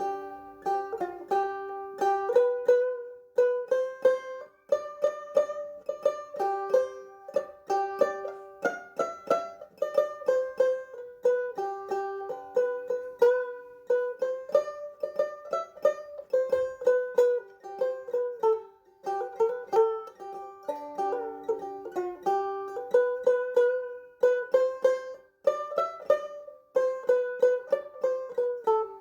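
Background music: an instrumental tune of quick plucked-string notes picking out a melody.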